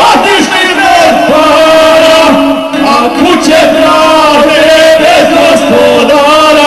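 Two men singing a traditional izvorna folk song together in long, held, wavering notes that slide between pitches, with a violin accompanying.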